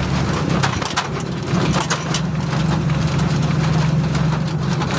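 Truck engine droning steadily while the truck drives, heard from on top of its load, with frequent light rattles over it.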